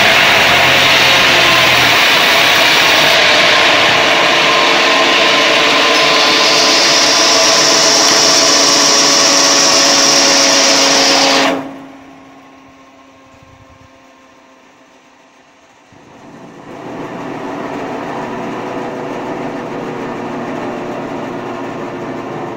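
Homemade band sawmill ripping a mahogany log, the blade's steady cutting noise over the engine that drives it. Just over halfway through, the sound drops off suddenly to a faint hum. About four seconds later a steady engine-and-belt running sound comes back up, quieter than the cut.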